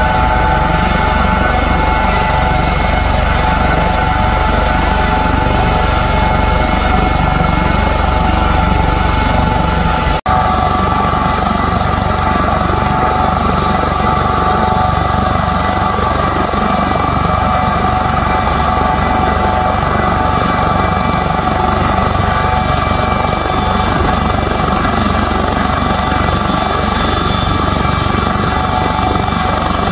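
Helibras HM-1 Pantera military helicopter, an AS565 Panther with a Fenestron shrouded tail rotor, running on the ground with its rotors turning before takeoff: a steady turbine whine with several high steady tones over a low rumble. There is a brief break about ten seconds in, after which the tones shift slightly.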